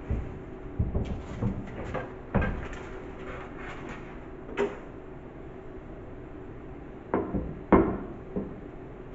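Irregular knocks and clunks of parts and tools being handled, quiet for a couple of seconds, then a few sharper clunks near the end, with a faint steady hum underneath.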